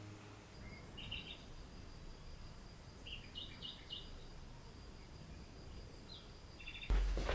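Faint bird chirps, short and high, a few scattered over quiet background noise. Near the end a sudden louder knock-like sound breaks in.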